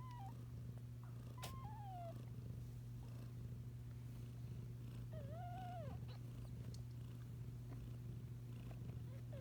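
Kittens mewing three times over a steady low purring: a short cry at the start, one falling in pitch about a second and a half in, and a longer cry that rises and falls about five seconds in.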